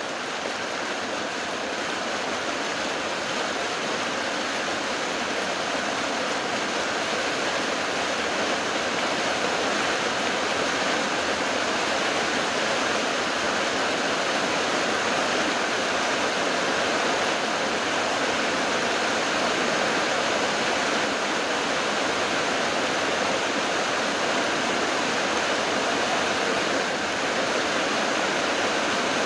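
Heavy rain falling steadily in a dense, even hiss, growing a little louder over the first several seconds.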